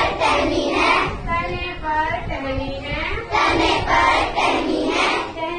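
A group of children singing a Hindi children's action song together.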